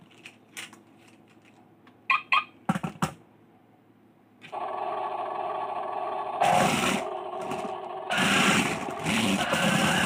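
Small electric motor of a mini remote-control toy car: a few clicks, then about four and a half seconds in the motor starts a steady whir, with three louder rough surges as the car drives.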